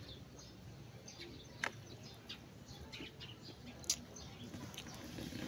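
Small birds chirping in short high notes throughout, with two sharp clicks, about one and a half and four seconds in.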